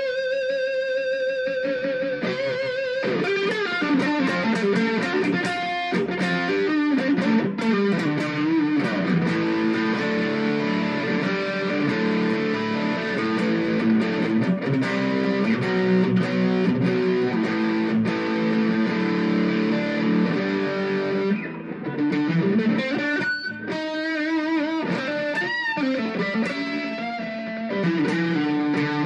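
Ibanez Gio electric guitar with Tokai pickups being played. It opens with a held note with vibrato for about three seconds, moves into chords and runs of notes, and has bent single notes near the end.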